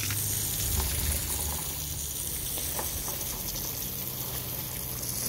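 Water spraying from a garden hose in a steady hiss as it showers garden plants and mulch.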